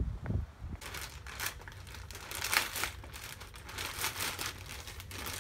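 Plastic packaging crinkling and rustling in irregular crackles as it is handled and unwrapped, after a couple of low bumps at the very start.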